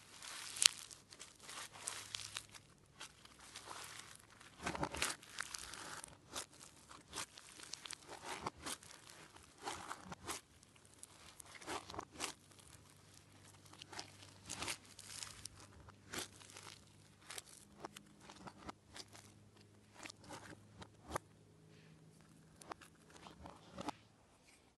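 Foam-bead slime (floam) squeezed and stretched by hand, giving irregular crunching and crackling as the beads are pressed together.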